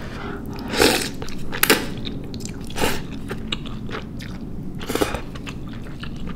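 Close-miked eating of brothy spicy instant noodles: four short, loud slurps, about a second, 1.7, 2.9 and 5 seconds in, with chewing in between.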